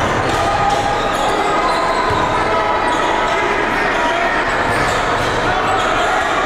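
Basketball game in a crowded gym: a steady din of many voices from the stands, with a ball being dribbled on the hardwood court.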